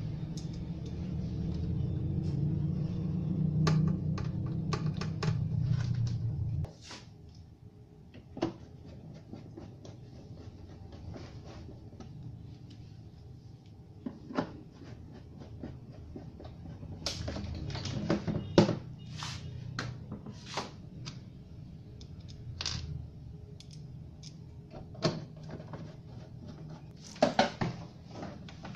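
Scattered clicks and knocks of a hand screwdriver and hard plastic as the back cover of a CRT television is screwed on and the set is handled on a wooden bench, with the loudest knocks near the end as the set is lifted and turned. A low steady hum underlies the first quarter and cuts off suddenly.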